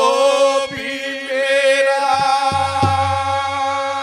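Male folk singer holding a long drawn-out note of a Haryanvi ragni, his pitch wavering, over a steady harmonium drone; a few dholak strokes come in during the second half.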